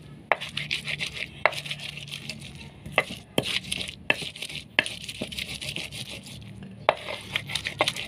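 A plain stone used as a pestle, pounding and grinding shallots, garlic, chilies and salt on a stone mortar. Irregular sharp knocks of stone on stone over a scraping grind.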